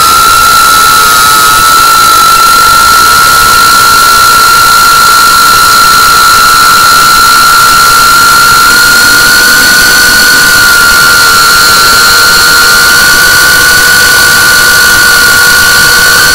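Small FPV quadcopter's brushless motors and propellers, a GEPRC Cinelog35 on 6S, whining at a steady cruise throttle over a constant loud hiss of rushing air.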